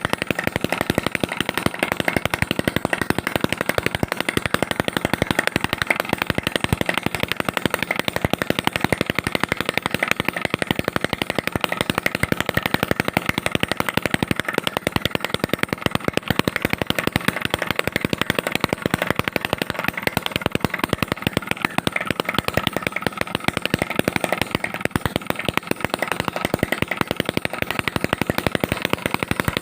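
Small homemade two-stroke petrol engine converted from a refrigerator compressor, running steadily with a rapid, even string of sharp exhaust pops.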